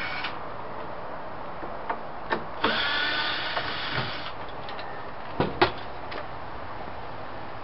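Cordless drill-driver whirring for about a second and a half as it backs out a cabinet door's hinge screws. A couple of sharp knocks follow a little later as the wooden glass-panelled door comes off.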